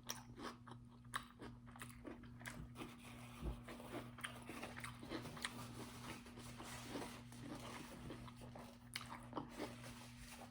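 Close-up chewing and crunching of a mouthful of cucumber, sausage and rice, with many small wet clicks and crackles. A steady low hum runs underneath.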